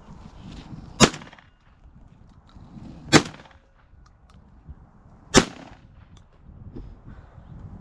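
Three loud shots from a semi-automatic shotgun, about two seconds apart, the first about a second in.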